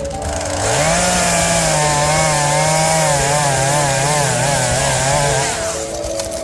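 Small chainsaw revving up and running, its pitch wavering and sagging about halfway through as if under load in the cut, then cutting out near the end. Music plays underneath.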